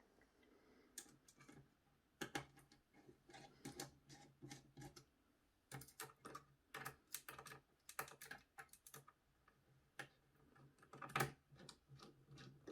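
Faint, irregular light clicks and taps of small computer hardware being handled and positioned, an M.2 SSD heatsink cover being lined up on a motherboard, with a faint low hum underneath.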